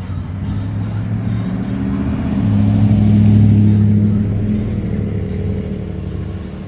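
Pickup truck driving past close by, its low engine note swelling to its loudest about halfway through and then fading as it pulls away.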